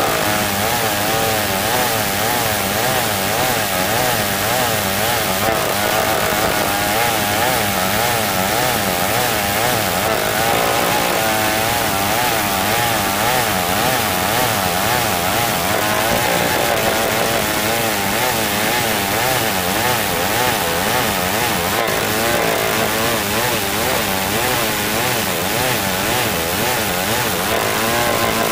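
Old two-stroke chainsaw running under load as it rips lengthwise along a log of hard marsawa batu wood. The engine note runs continuously, its pitch wavering rapidly up and down throughout the cut.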